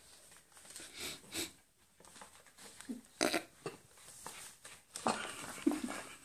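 Paper bag rustling and scraping in irregular bursts as a cat moves and rolls about with its head stuck inside it.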